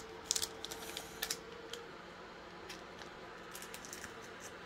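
Foil Pokémon booster-pack wrapper crinkling and crackling in the hands as it is opened: a scatter of short, sharp crackles, thickest in the first second and a half and again near the end.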